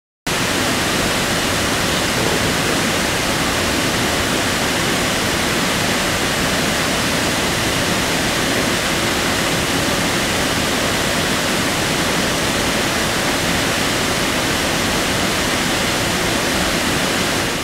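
An 18-foot waterfall running heavy with rainwater: a steady, loud rush of falling water that cuts in suddenly just after the start and begins to fade at the very end.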